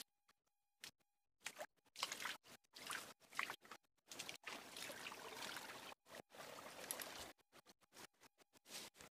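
Shallow forest stream trickling, heard in choppy bursts that keep cutting in and out, with a few clicks in the first second.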